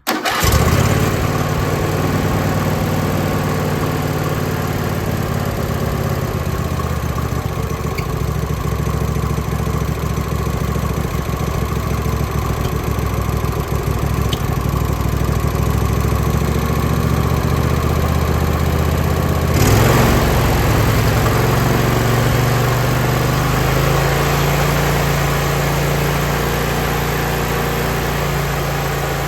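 John Deere L120 riding lawn mower's 20 hp gas engine running steadily. About twenty seconds in, a brief louder surge shifts the engine note, and it then runs on steadily.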